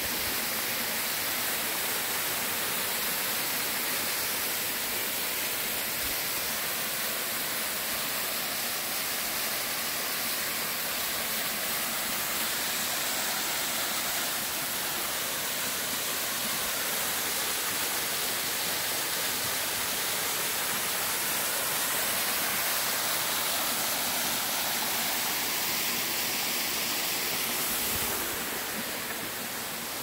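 Waterfall rushing steadily: several thin streams falling over travertine rock and splashing into a pool. It gets a little quieter near the end.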